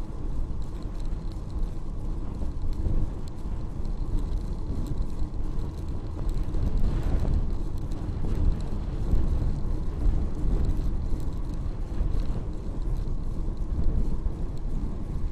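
Steady rush and rumble of wind and tyre noise on a bicycle-mounted camera's microphone while riding at about 24 km/h on an asphalt cycle path.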